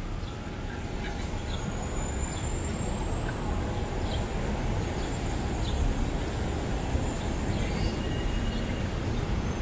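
Steady low rumble of city street traffic, with a thin high whine for a second or so and a few faint high chirps over it.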